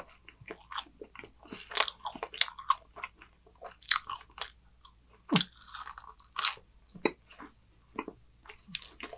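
Close-miked chewing of a mouthful of pizza: irregular wet smacks and crunches of the jaw and lips, a few of them sharper and louder than the rest.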